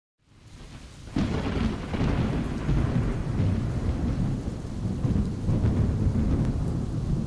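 Thunderstorm: rain falling, with a sudden thunderclap about a second in followed by a long rolling rumble.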